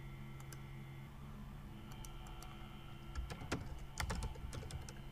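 Computer keyboard typing: a quick run of key taps, thickest a little past halfway, with a few lighter clicks in the first second or so.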